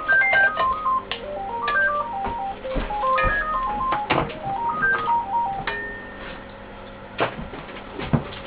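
A simple electronic melody of short single beeping notes, like a phone ringtone, playing until about six seconds in, with scattered clicks and knocks.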